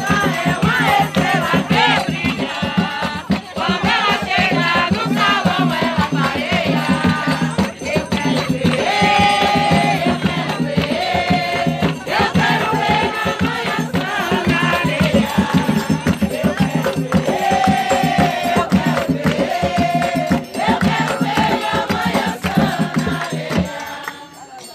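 A group of voices singing a ritual song for Iemanjá over a steady shaken-rattle percussion beat. The music drops away near the end.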